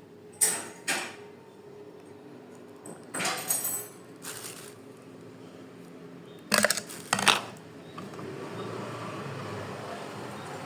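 Small metal parts of a sewing machine's rotary hook assembly clicking and knocking as they are handled and fitted: a pair of sharp clinks, a short cluster a few seconds in, and another pair later. A low steady noise slowly rises near the end.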